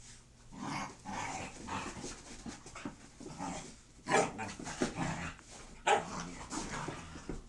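Two dogs play-fighting, with panting and short dog vocal noises, and two sharper, louder sounds about four and six seconds in.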